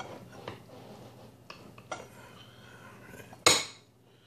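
Metal cutlery scraping and clicking against the dish as a serving of chicken pot pie is cut out and lifted, with one loud clatter about three and a half seconds in.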